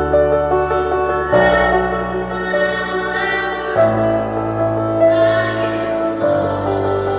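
Slow, tender music of sustained chords that change about every two and a half seconds.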